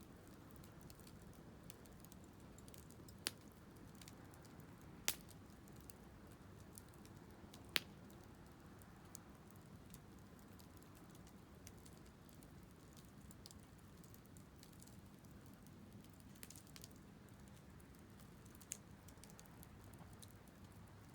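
Wood fire burning, with a low rumble and scattered small crackles; three sharp pops of burning wood in the first eight seconds and another near the end.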